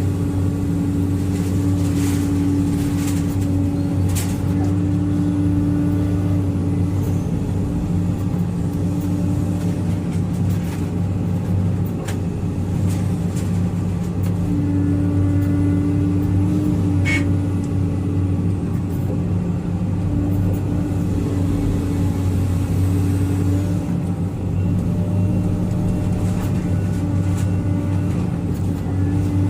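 Motor vehicle engine running at a steady speed: a continuous low drone that holds an even pitch, with a few faint clicks.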